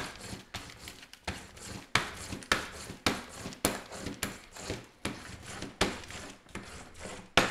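Small hand brayer roller rolled back and forth over a plastic sheet laid on image transfer paper, pressing it down so the gel makes good contact for a complete transfer. It makes a repeated rolling rasp, about one to two strokes a second, each starting sharply and fading.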